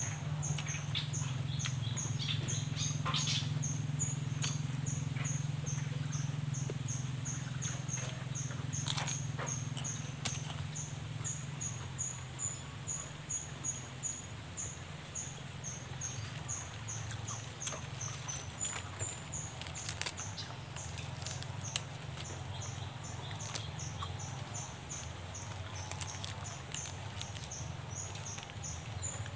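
Mukbang eating sounds: roasted small fish being torn apart by hand and chewed, with short clicks and crackles of charred fish and banana leaf. Behind them a high chirping call repeats about three times a second throughout, over a low steady hum that drops after about ten seconds.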